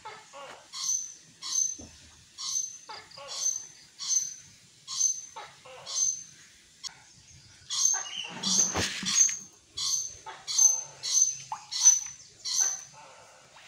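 An animal calling over and over in short, high calls, about one a second at first, then louder and quicker from about eight seconds in.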